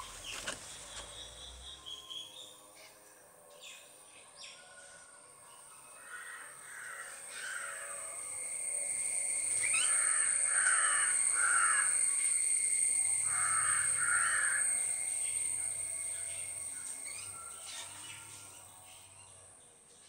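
A crow cawing in short runs of about three caws, heard three times, over a steady high-pitched drone that swells in the middle and fades away.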